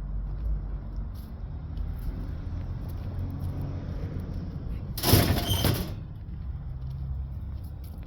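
Steel parts of a central air conditioner being handled over a low steady rumble, with one loud scraping clatter lasting about a second, about five seconds in.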